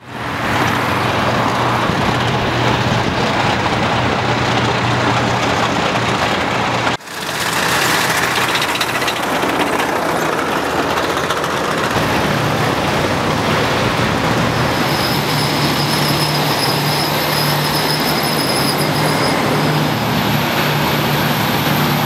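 A column of tanks and military vehicles driving past, a steady loud drone of engines and running gear. The sound breaks off sharply about seven seconds in and picks up again. A thin high whine joins in for the second half.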